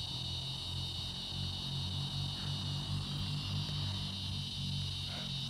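Steady high-pitched chorus of insects, such as crickets, droning without a break, over a low wavering rumble.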